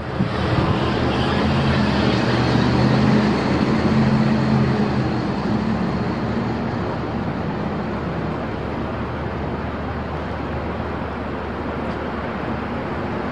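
Street traffic: a vehicle engine runs with a low, steady hum for the first several seconds, then fades away, over a constant rushing noise of traffic and wind on the microphone.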